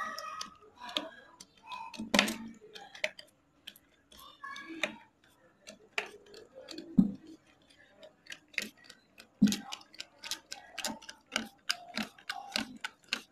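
A brush scrubbing a kerosene-soaked motorcycle brake panel: irregular clicks and scratchy taps of bristles and handle against the metal.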